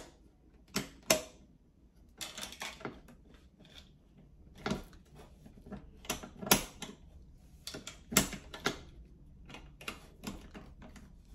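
Irregular clicks, clacks and knocks as hands handle and adjust the metal frame and fittings of an unpowered thrusting machine, some in quick clusters.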